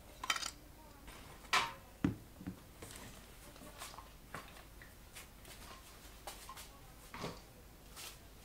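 Faint handling noise on a workbench: scattered light knocks and clicks of objects being moved and set down, the loudest a little after one and a half and two seconds in.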